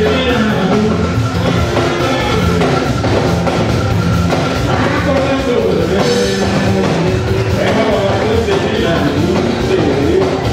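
Band music with drums and a stepping bass line, with voices singing a melody over it.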